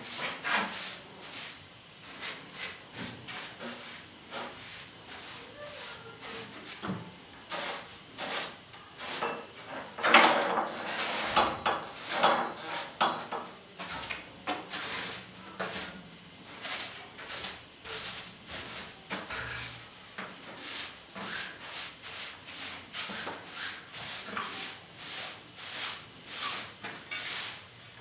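A short hand broom sweeping a tiled floor in quick repeated scraping strokes, about two a second. The strokes are louder and denser about ten seconds in and pause briefly a few seconds later.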